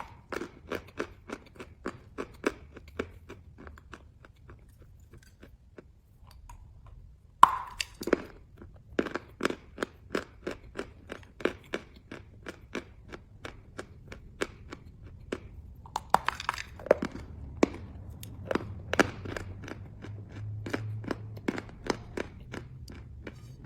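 Chalk being bitten and chewed, a run of crisp crunches about two to three a second. After a short pause about four seconds in, a loud bite comes at about seven and a half seconds and another near sixteen seconds, each followed by more crunchy chewing.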